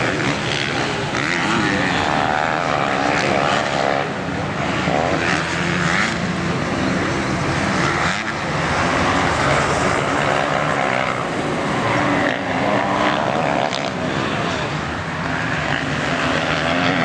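Motocross bikes racing on a dirt track, their engines revving, rising and falling in pitch and overlapping without a break.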